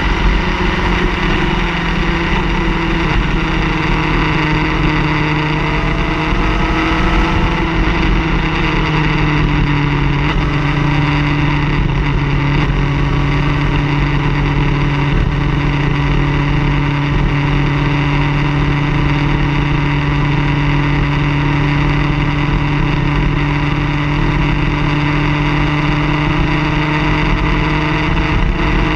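Car engine droning steadily at a constant cruise, with road noise; its pitch drifts slowly up and down.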